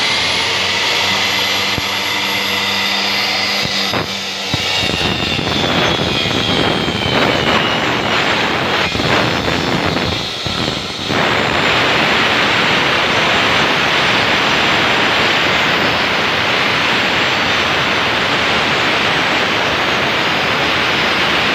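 Electric circular saw running and cutting through plywood. A steady motor whine with a high tone that sags slightly gives way, from about four seconds in, to a denser, harsher cutting noise that thickens further from about eleven seconds in and holds to the end.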